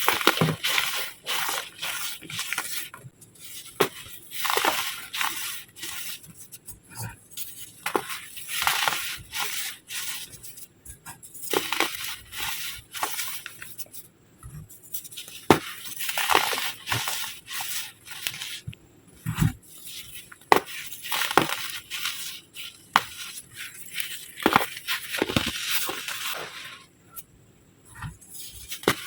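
Moulded baking soda egg shapes being crushed: dry, crumbly crunching in irregular bursts, with sharp cracks as pieces break apart.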